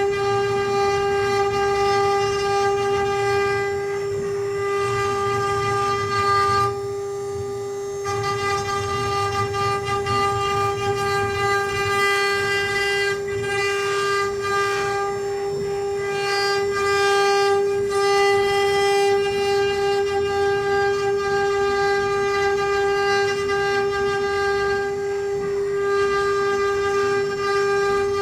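Mini CNC wood-carving machine's spindle running at one steady pitch with a high whine while it carves wood, the whine easing briefly about seven seconds in.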